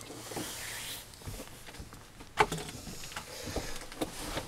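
Handling and movement noises as a person sits down at a table in a small camper: a soft rustle for about the first second, then several separate knocks and clicks, the sharpest about two and a half seconds in.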